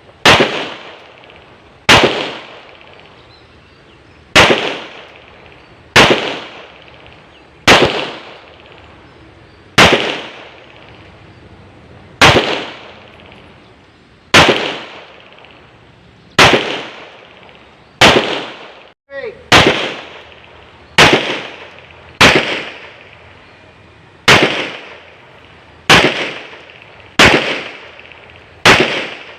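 Rock Island Armory Tac Ultra FS HC 9 mm pistol fired one shot at a time, about sixteen shots roughly every one and a half to two seconds, each crack followed by a short echoing decay.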